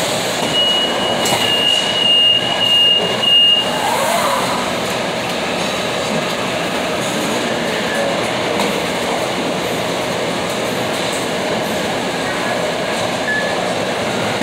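Steady rattling mechanical running noise of machinery, with a high, even squeal for about three seconds near the start and scattered clicks.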